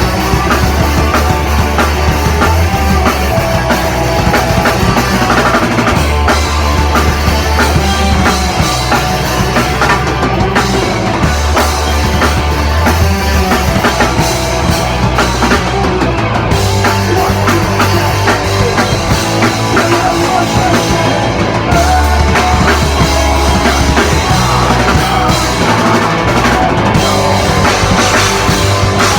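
Loud rock music played by a band, with a full drum kit and bass.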